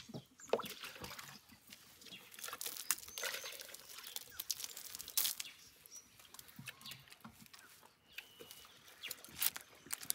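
Scattered short clicks and knocks from objects being handled, with a few brief bird chirps.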